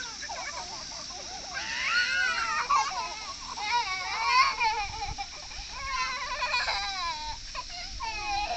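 A young child crying, in several wavering wails with short breaks between them.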